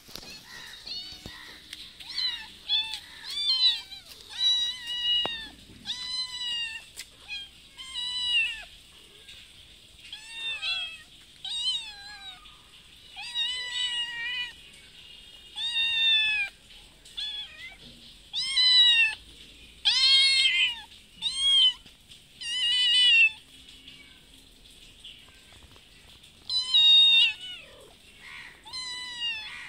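Domestic cats meowing repeatedly, a long string of high meows that rise and fall in pitch, about one every second, sometimes two close together. They are begging for food.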